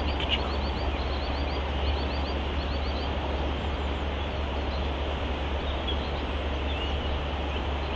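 Steady rushing wind noise with a low rumble on the microphone, and a small bird singing short rising chirps in quick runs of three or four during the first three seconds, with a few fainter calls later.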